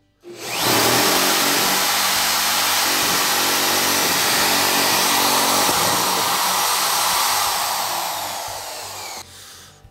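Bosch GSB 16 RE corded impact drill running at full speed in plain drilling mode, hammer action off, as a twist bit bores into a wooden board. The motor starts sharply, runs steadily for about eight seconds, then falls in pitch and stops near the end.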